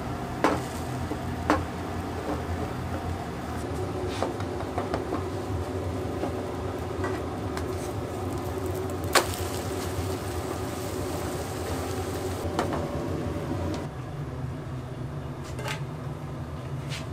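Food-prep clatter: a handful of sharp knocks and clinks of utensils and cookware, spaced several seconds apart, over a steady low machine hum.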